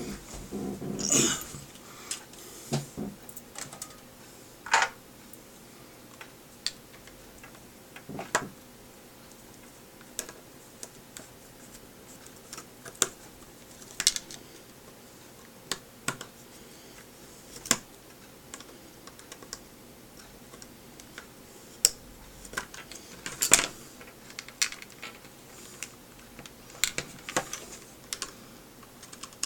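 Irregular sharp clicks and taps of hard plastic being handled and pried at while dismantling the iWear AV230 XL video glasses' housing, which won't come apart. The clicks come at uneven intervals, about one every second or two, some louder than others.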